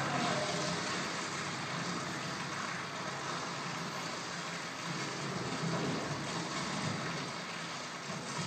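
A steady rumbling, hissing drone of noise with no clear pitch or beat: the ambient soundtrack of a video art installation playing in the gallery room.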